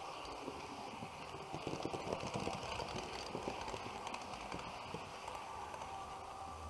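HO-scale model train running under an onboard camera, its wheels clicking and clattering over rail joints and points, busiest a couple of seconds in.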